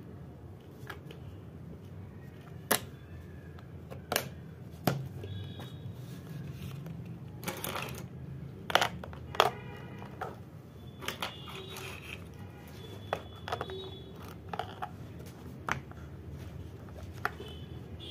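Plastic pencil box being handled: irregular sharp clicks and taps as its lid and catches are worked and wooden pencils are moved about inside it, the loudest pair about halfway through.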